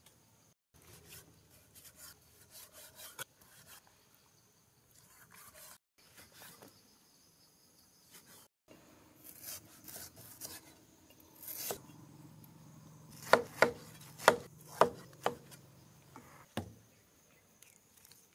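Cleaver cutting food on a wooden chopping board: soft slicing and scraping at first, then a quick run of about six loud, sharp chops about two thirds of the way in, with one more a little later.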